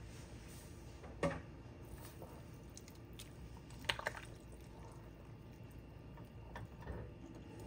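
A spatula stirring chicken soup in a stainless steel pot: liquid sloshing, with a sharp knock against the pot about a second in and a couple of clicks about four seconds in.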